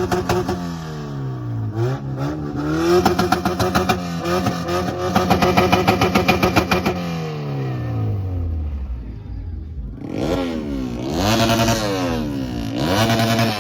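A motor vehicle engine is revved repeatedly with the throttle blipped, as in an exhaust sound check. It starts high and falls away, then climbs and holds high with a rapid pulsing note for a few seconds. It falls back again and gets two short, sharp revs near the end.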